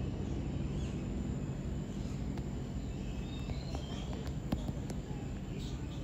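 Aviary ambience: a steady low background rumble with faint bird chirps and a few light clicks, mostly between about three and five seconds in.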